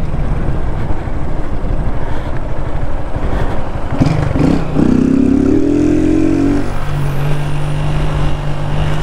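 Motorcycle engine running while being ridden, with rough wind noise on the microphone; about four and a half seconds in the engine revs up in a rising pitch, then settles into a steady drone.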